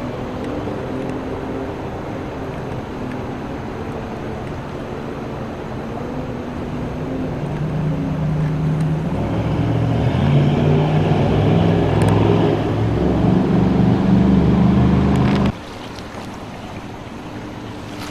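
An engine running steadily, growing louder about halfway through, then cutting off suddenly a few seconds before the end.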